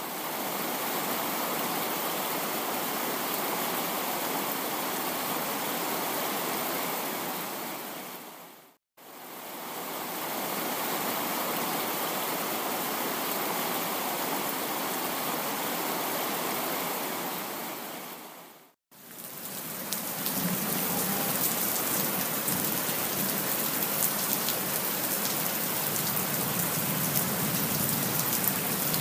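Steady rain, as an even hiss that fades out and back in twice, about 9 and 19 seconds in. After the second break it comes back slightly louder, with separate drop hits standing out.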